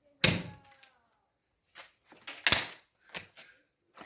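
Sharp thuds: two loud ones about two seconds apart, with a few fainter knocks between them and after.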